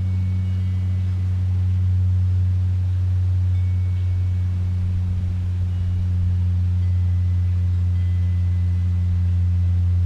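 A loud, steady low hum that does not change, with faint short high-pitched tones now and then.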